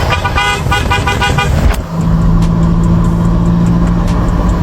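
Hella JP Kuro car horn sounding in a quick series of short blasts, then stopping about 1.7 seconds in, after which a steady low hum goes on.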